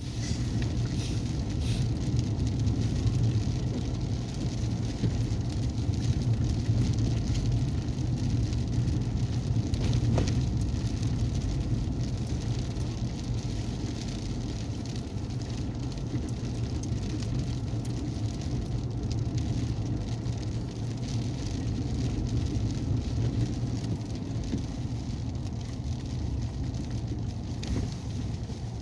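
Inside a four-wheel-drive vehicle driving on a snow-covered road: steady low engine and tyre drone, with a faint patter of frozen sleet hitting the vehicle.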